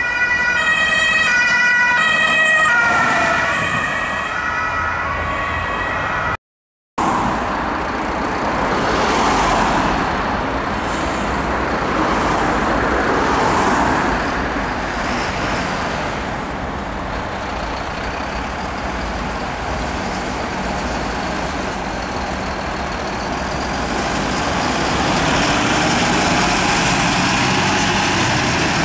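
German two-tone emergency siren (Martinshorn) alternating between two pitches on an approaching emergency doctor's van. After a sudden cut, a fire-service truck's diesel engine and road noise swell and fade, growing louder near the end as the truck passes.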